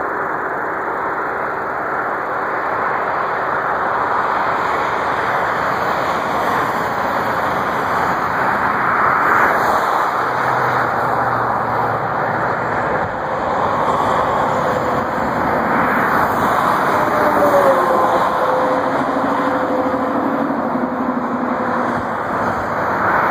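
Steady road and wind noise inside a car driving at highway speed, with faint hums coming and going partway through.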